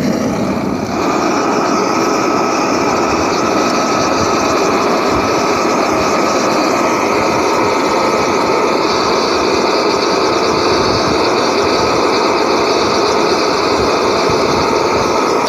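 Homemade paint-can propane forge burning on its low setting: a steady rushing noise from the burner, with a thin steady whine joining about a second in.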